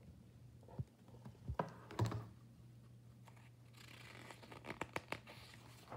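Pages of a picture book being turned: paper rustling with a few sharp handling clicks, a couple of knocks about one and two seconds in, and a longer rustle near the middle.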